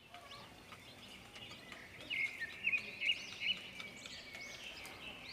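One-day-old chicks peeping, many short high chirps overlapping, busiest near the middle.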